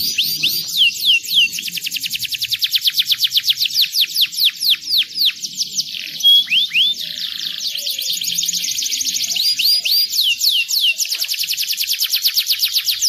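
Domestic canary singing a long, high-pitched song of fast trills and quick falling whistles, with a brief change to a few separate notes about six seconds in before the rapid trilling resumes.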